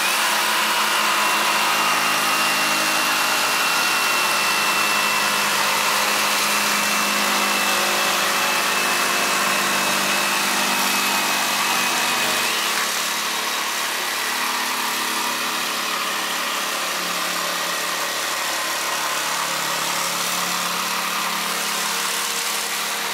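Cordless Milwaukee M18 jigsaws running under load, their blades cutting through plywood sheet with a steady, loud buzz. About twelve seconds in, the sound changes and gets slightly quieter.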